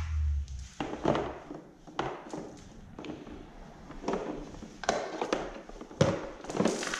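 Handling noise: irregular knocks and taps as a power cord and plug are moved about and set down inside a plastic toolbox, with some rustling of cables between them.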